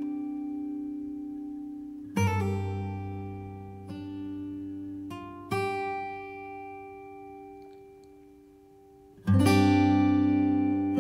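Background music: slow acoustic guitar, chords strummed about 2, 5.5 and 9 seconds in, each left ringing and fading, with a few single plucked notes between them.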